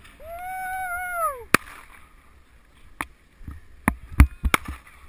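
A single long, high whoop from a person, held level for about a second and then falling away. It is followed by scattered sharp clacks and low knocks, the loudest about four seconds in.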